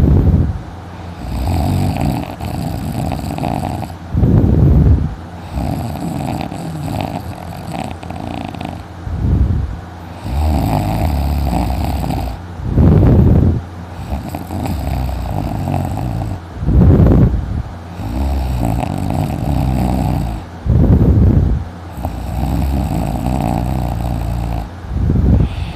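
A man snoring loudly in his sleep, a loud snore about every four seconds with quieter breathing noise in between.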